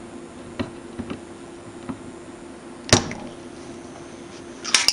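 Spring-loaded solder pump firing with one sharp snap a little under three seconds in as it sucks molten solder from a capacitor joint on a circuit board, then a quick cluster of clicks near the end. A few faint ticks come before it.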